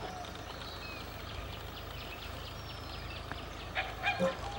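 Birds chirping and calling over a steady low hum, with a few sharper, louder calls near the end.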